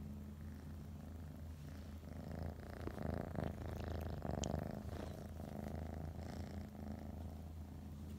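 Domestic tabby cat purring steadily; the purr grows louder and closer for a few seconds in the middle, when the microphone is right up against its fur.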